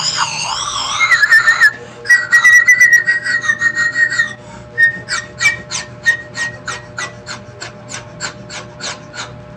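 Squeaky, whistling sounds from sucking hard on the drinking straw of a small bottle of cultured milk drink. They give way to a run of short slurps, about four a second, that fade away near the end.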